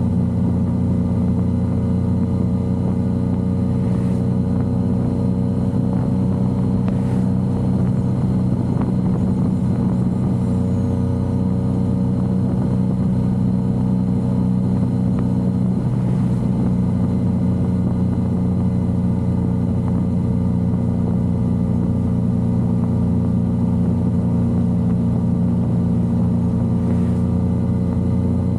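Yamaha XSR900's three-cylinder engine running at a steady, unchanging pitch on the move, with a haze of wind and road noise.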